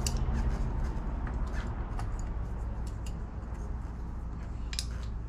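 Hand ratchet on a long extension tightening intake manifold bolts: scattered, irregular metallic clicks and ticks over a steady low hum.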